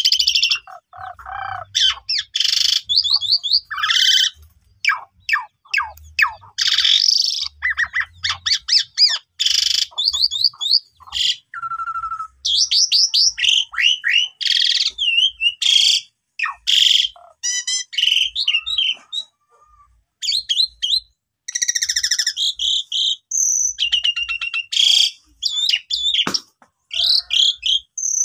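Asian pied starling (jalak suren) singing loudly: a fast, varied run of chattering trills, sweeping whistles and harsh squawking notes in bursts, with short pauses between phrases.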